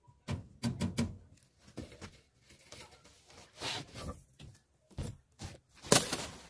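Sharp metallic clicks and knocks of rebar and steel tie wire being handled while a rebar cage is tied up, with a quick cluster about a second in, scattered clicks after, and the loudest rattle near the end.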